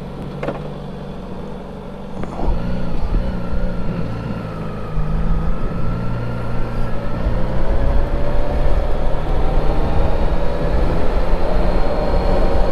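Suzuki GSX-S1000GT's inline-four engine pulling away and getting under way. It gets louder about two seconds in, and its note climbs slowly from about five seconds.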